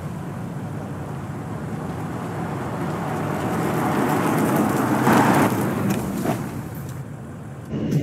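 Engine and exhaust of a blue Audi estate car driving up, growing louder to a peak about five seconds in and then easing off as it slows; the sound stops suddenly just before the end.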